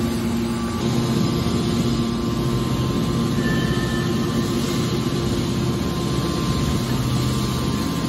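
Hydraulic scrap metal baler's power unit running with a steady low hum and drone as its cylinders swing the hopper lid closed over the aluminum scrap. It gets a little louder about a second in.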